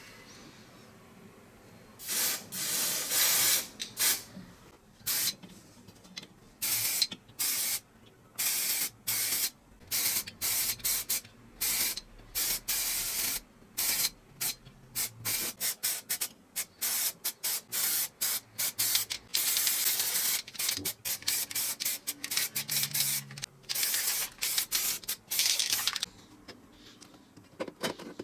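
Aerosol spray can hissing in many short bursts, with longer sprays about two seconds in and again near the end, as parts are spray-painted.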